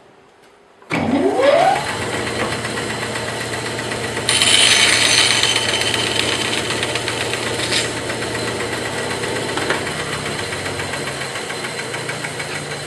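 Bandsaw switched on about a second in, its motor hum rising quickly in pitch as it comes up to speed, then running steadily. About four seconds in, a louder hiss joins for some three seconds before dropping away.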